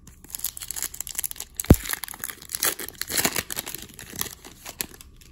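Foil wrapper of a hockey card pack being torn open and crinkled by hand, with one sharp knock a little under two seconds in.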